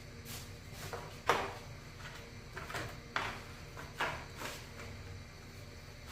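About five short scraping strokes on the moped's plastic chain guard, the loudest about a second in, over a faint steady hum.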